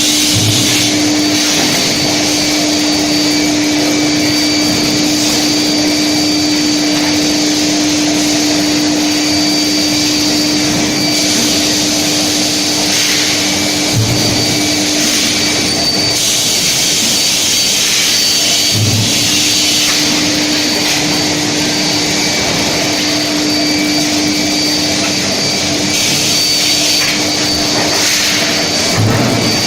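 Metal heat treatment furnace equipment running: a steady, loud machine noise with a constant hum and a thin high whine that comes and goes, with a few brief low thumps.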